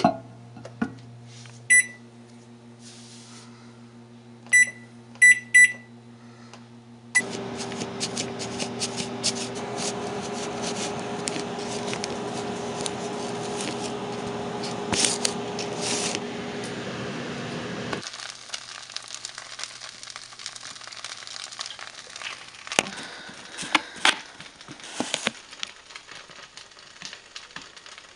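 Microwave oven humming as it heats a bowl of soup, with its keypad beeping once about two seconds in and a few times in quick succession around five seconds. At about seven seconds a louder steady rushing noise takes over and stops abruptly about ten seconds later, followed by scattered kitchen clinks and knocks.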